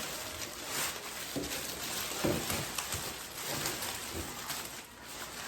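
Mannequin packaging being torn open by hand: steady crackling and rustling with scattered sharper crinkles and snaps.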